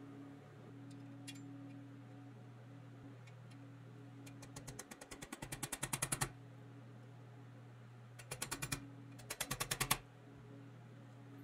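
Rapid runs of light metallic clicks as a plastic rod is pressed and worked against a steel tab on a pressed-steel toy car chassis: one long run in the middle and two short runs near the end. A steady low hum runs underneath.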